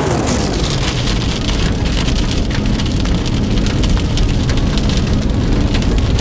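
Steady road and wind noise inside a moving car, with a constant crackle over it.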